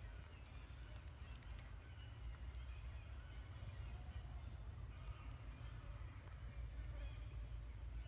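Faint outdoor ambience: a steady low rumble, like wind on the microphone, with a few faint short high chirps and light clicks scattered through it.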